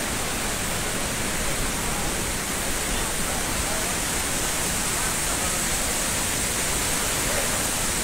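Dudhsagar waterfall's falling water: a steady, even rush of noise with no break or change.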